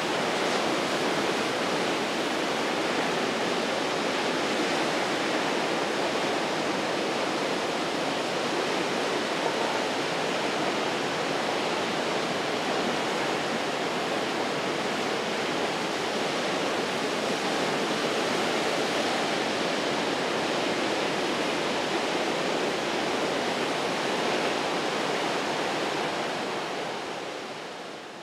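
Ocean surf breaking and washing over rocks along the shore, a steady rushing noise with no distinct wave crashes, fading out near the end.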